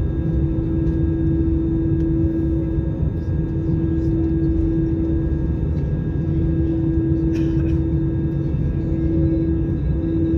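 Cabin noise of an Airbus A319 rolling on the runway: a steady low rumble with a constant engine hum, and a brief rattle about seven seconds in.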